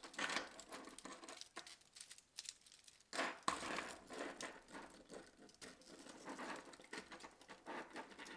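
3D-printed plastic Hoberman sphere links being handled and pressed together, irregular small clicks and rattles as the pieces are worked into place, with one louder snap about three seconds in.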